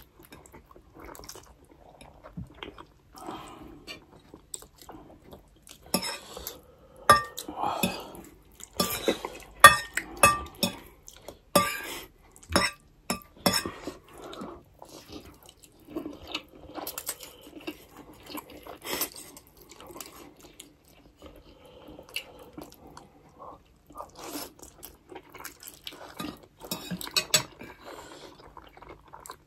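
Metal forks and spoons clinking and scraping on ceramic plates while noodles are twirled and eaten, with slurping of noodles between. The clinks are sharp and bunched in a busy run through the middle and again near the end.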